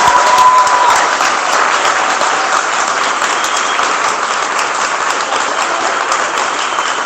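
Audience applauding steadily, with a brief whoop rising over it at the start.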